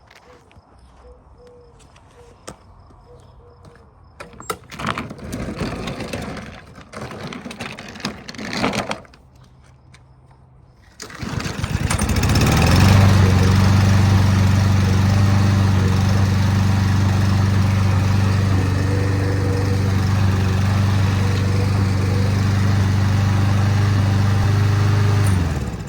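Craftsman M110's 140cc single-cylinder mower engine being pull-started. After two rough bursts of cranking, it catches about eleven seconds in and runs steadily at one speed, now that a new carburetor restores fuel to the cylinder. It shuts off abruptly near the end.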